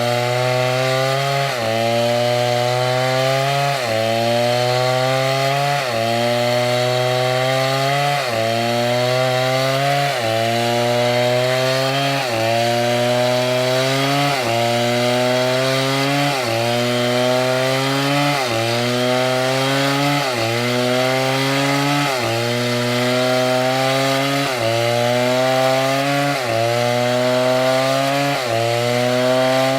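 STIHL chainsaw cutting wood. The engine note climbs and then drops sharply about every two seconds, over and over, as the chain bites into the wood under load.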